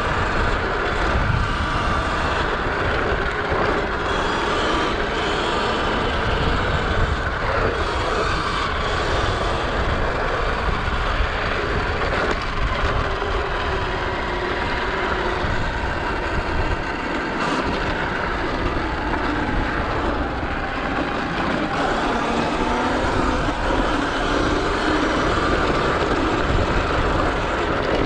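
Sur Ron X electric dirt bike being ridden: the electric motor's whine drifts up and down with speed over a steady rush of wind and tyre noise.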